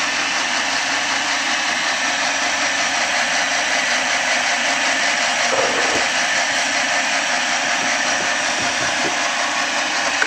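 A power tool running steadily as it shapes a new teflon insert for a worn ball joint.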